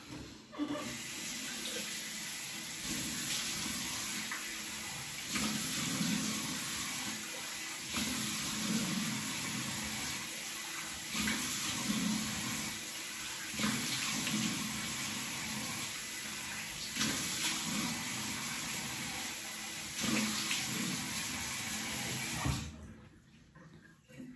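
Bathroom tap running into a sink while cold water is splashed onto the face in handfuls, a splash every few seconds. The running water stops abruptly about two seconds before the end.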